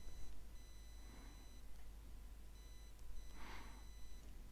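Quiet room tone with a low steady electrical hum and a faint high-pitched electronic whine that keeps switching on and off. Two soft breathy noises, about a second in and again near three and a half seconds.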